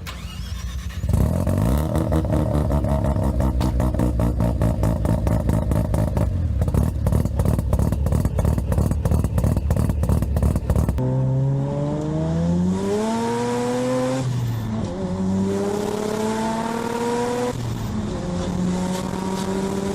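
Mazda RX-7 FD's 1.3-litre twin-turbo rotary engine: first a rapidly pulsing run, then, after an abrupt change about eleven seconds in, hard acceleration through the gears, the pitch rising three times with two drops at the upshifts.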